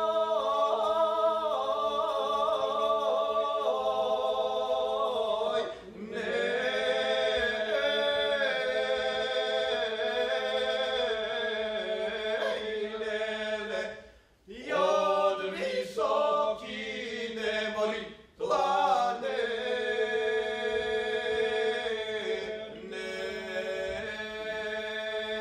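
Male vocal trio singing Macedonian traditional polyphony a cappella: held drone notes sound beneath a moving, ornamented melody. The voices break off briefly for breath three times, about 6, 14 and 18 seconds in.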